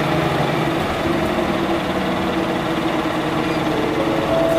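Mitsubishi Fuso QKG-MP38FK city bus's six-cylinder diesel engine running, a steady even drone with no change in pitch.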